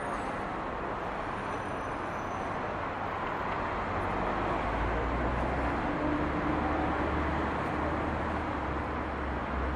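City street traffic noise, a steady wash of road sound. About halfway through, a heavy vehicle's low engine rumble and hum builds up and holds.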